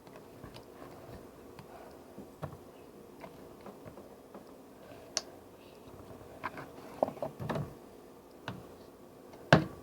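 Light scattered clicks and taps of kitchen utensils and containers being handled while food is mixed, the loudest near the end, over a faint steady hum.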